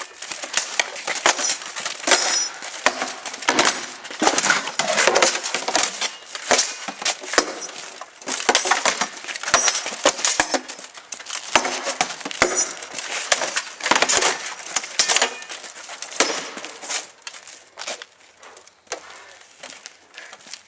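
Medieval sword-and-shield sparring in armour: a rapid series of sword blows clattering against shields, helmets and plate, with armour clinking as the fighters move. The blows thin out and fade near the end.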